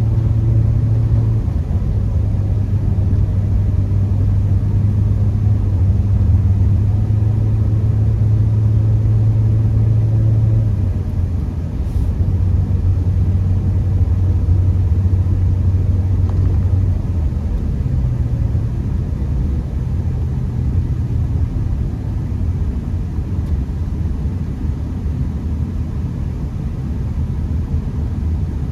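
Honda Accord driving, heard from inside the cabin: a steady low engine drone over road and tyre rumble. The drone's pitch steps down or up a few times as the engine speed changes.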